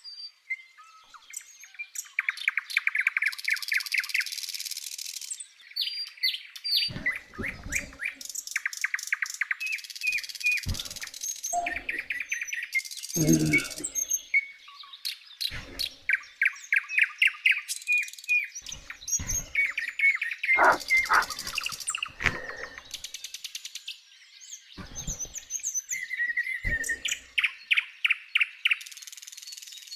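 Birds chirping outdoors, with many fast trills of short repeated notes, and a few brief dull knocks scattered through.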